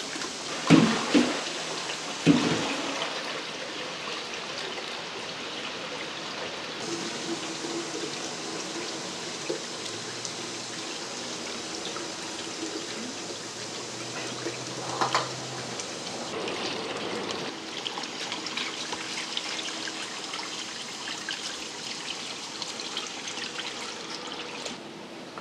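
Tap water running steadily into a tub of flying fish being washed. A few sharp, loud sounds come about a second and two seconds in.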